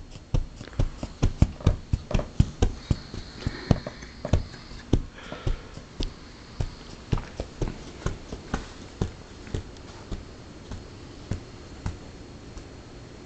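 Great Dane's tail thumping against a couch cushion as she lies on it wagging: a run of soft thumps about three a second, slowing and getting fainter, and stopping shortly before the end.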